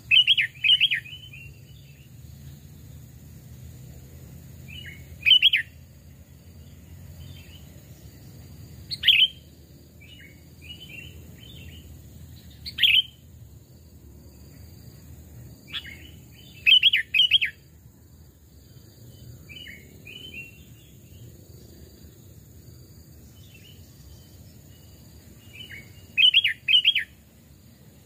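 Sooty-headed bulbul (kutilang) singing: loud, short, bright chirping phrases every few seconds, about six in all, with softer scattered notes between them.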